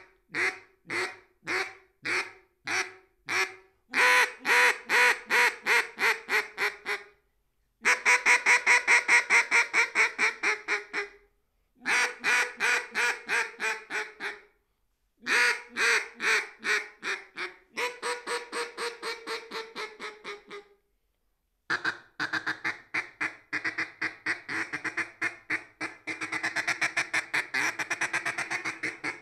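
Siren Mythology double-reed duck call blown in mallard hen calling: slow single quacks about two a second, then several strings of quacks, each a few seconds long with short pauses between and many fading toward the end. Toward the end it breaks into a fast, rolling chatter of quick notes.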